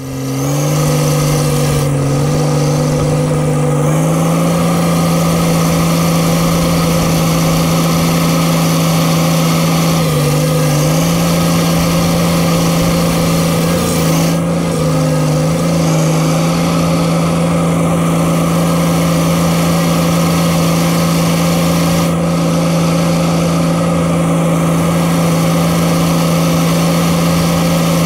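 Diesel engine of a Case crawler dozer running heard from the operator's seat, a loud steady drone. Its pitch steps up about four seconds in and sags briefly twice as the machine works.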